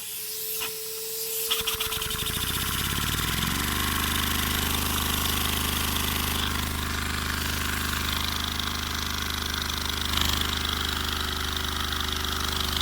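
Lego hinge-valve vacuum engine starting up: rapid clicking that speeds up over about two seconds into a steady high-pitched buzz as it runs at very high speed, around 3,000 rpm.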